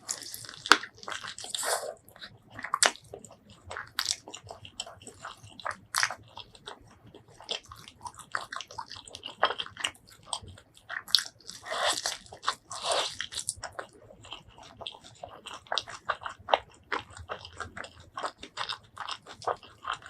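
Close-miked eating of crispy fried chicken: loud crunchy bites followed by chewing, with the heaviest crunches near the start and again around the middle.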